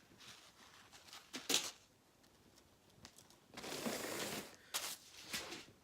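Rustling and crinkling of packaging and clothing being handled as a hoodie is taken out and unfolded: a few short rustles and one longer stretch of about a second a little past the middle.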